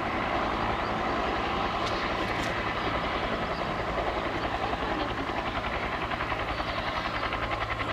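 Bell UH-1D helicopter's turbine and two-blade main rotor running on the ground, a steady hum with a rapid rotor beat that grows more distinct about halfway through.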